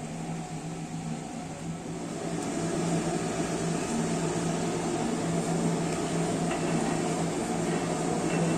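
A steady machine-like hum with a rushing noise that grows a little louder about two and a half seconds in.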